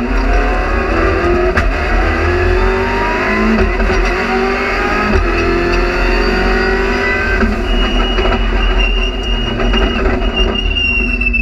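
Rally car engine accelerating hard, heard from inside the cabin, its pitch climbing in several long sweeps as it pulls through the gears. A steady high whine joins in for the last few seconds.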